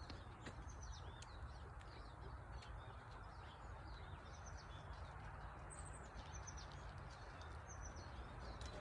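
Small birds chirping faintly, a steady scatter of short high calls throughout, over a low outdoor background hum.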